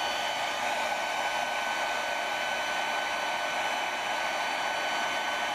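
Electric heat gun running steadily: a continuous blowing hiss from its fan with a faint high whine. It is warming the adhesive under a plastic trim piece to soften it.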